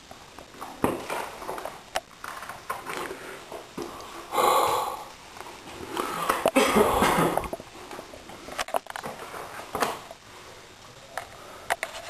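Scattered knocks, scuffs and rustling of people clambering over rock in a cave passage, with two longer, louder stretches of scraping and rustling about four and six seconds in.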